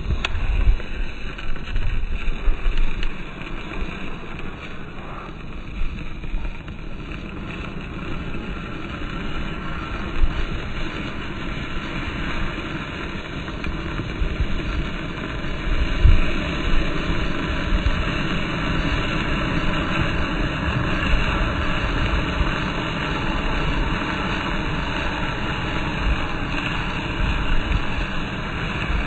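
Match heads flaring one after another as fire spreads through a model plane built of matches: a steady fizzing hiss that gets stronger in the second half, over a low rumble of wind on the microphone.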